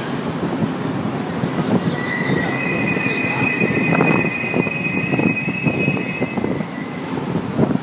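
São Paulo Metro Frota P train rolling slowly into the platform, with a steady rumble and knocks from the wheels on the rails. A thin high squeal joins about two seconds in and fades out a little after six seconds as the train comes to a stop.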